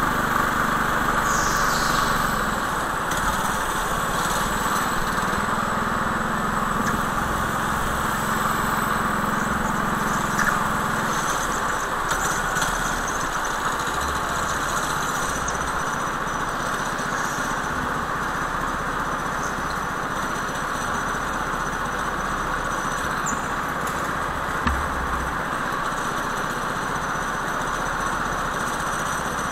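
Go-kart engines running steadily during a race over a steady hiss. The low engine note fades after about eleven seconds.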